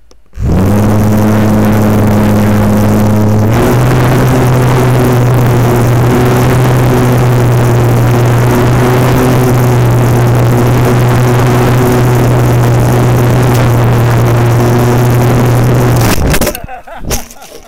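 Electric toothbrush motor spinning a small model-aircraft propeller, heard close up from a camera mounted on the plane: a loud, steady buzz that starts about half a second in, steps up a little in pitch a few seconds later, and stops suddenly near the end.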